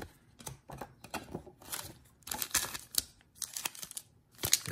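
Trading cards in plastic sleeves and a foil card pack being handled, making an irregular run of short crinkling rustles and clicks.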